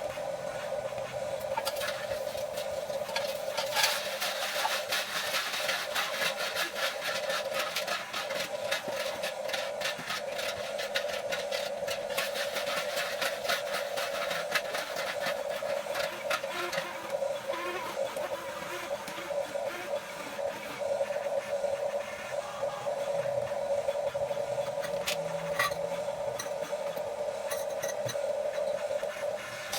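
Huina 1550 remote-control excavator's electric motors and plastic gearboxes running with a steady whine, overlaid with dense clicking and rattling.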